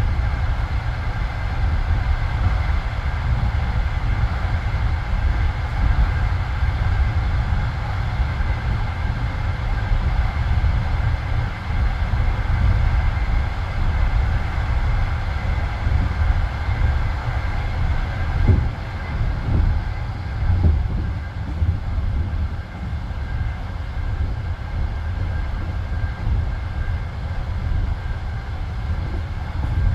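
Passenger railway carriage running along the track, heard from inside: a steady low rumble of wheels on rails, with a few short knocks from the wheels about two thirds of the way through.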